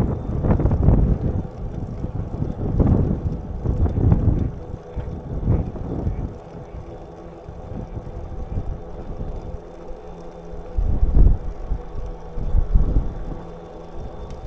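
Wind buffeting the microphone of a bicycle-mounted camera while riding, coming in uneven gusts, with a faint steady whine underneath.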